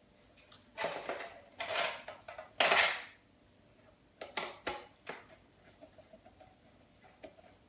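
Metal parts clattering and scraping as an electric heater is taken apart by hand for scrap: three louder rattling bursts in the first three seconds, then a series of lighter clicks and knocks.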